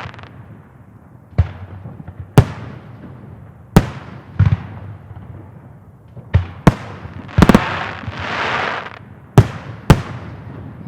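Aerial fireworks bursting: sharp bangs about once a second, several in quick succession about seven and a half seconds in, followed by a crackling hiss lasting about a second.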